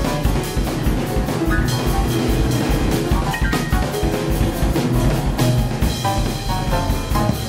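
Drum kit and grand piano playing free jazz together: dense, fast drumming under quick runs of piano notes.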